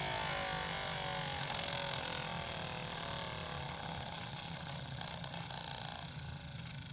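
Kirby Ultimate G vacuum's motor and its air-driven turbo brush spinning down after switch-off: a whine that falls steadily in pitch and fades slowly, the long coast-down a sign of good bearings.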